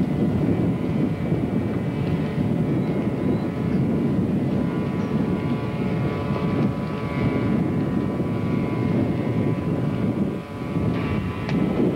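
Steady drone of fire appliance engines running, with a faint steady whine above it.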